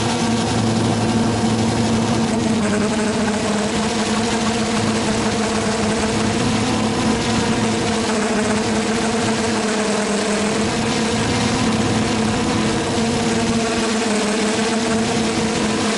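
Quadcopter's four brushless motors and 9-inch propellers humming steadily while it hovers, the pitch wavering slightly.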